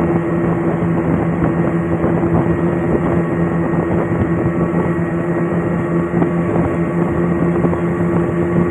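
A boat's motor running steadily at a constant speed, with a low, even hum.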